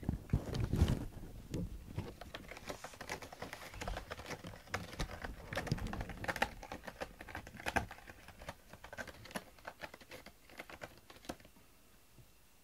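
Fast, dry scratching and ticking of a cat on a corrugated cardboard scratcher as it noses at the cardboard and steps over it, with a few low thumps at the start. The scratching thins out and stops about a second before the end.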